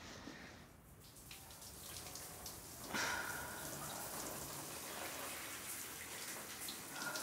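Shower water running: a steady spray hiss with patter and drips, growing louder about three seconds in.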